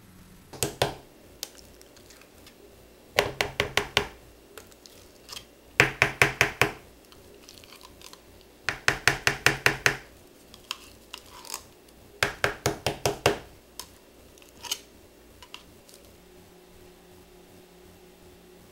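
Metal can of refried beans being tapped and knocked to work the beans out into a bowl, in about five quick runs of sharp taps, each run about a second long.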